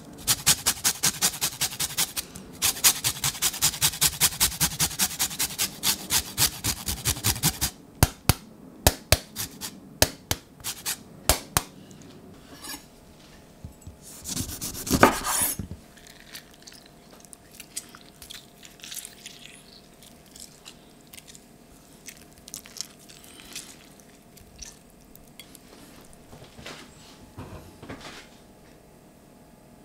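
Lemon zested on a hand-held metal grater: quick, regular rasping strokes for about the first eight seconds, then a few sharp taps. About fourteen seconds in, a knife cuts through the lemon on a wooden chopping board, the loudest sound. Faint handling follows as the seasoning is worked into the raw chicken thighs.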